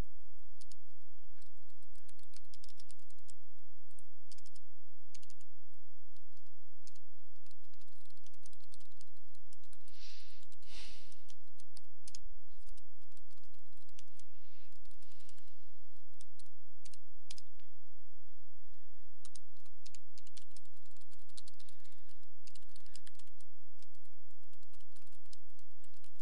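Typing on a computer keyboard: irregular runs of keystrokes as code is entered, with a brief rush of noise about ten seconds in, over a steady low hum.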